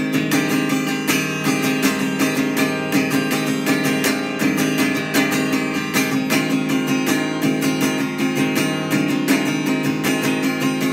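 Acoustic guitar music: chords strummed in a steady, quick rhythm.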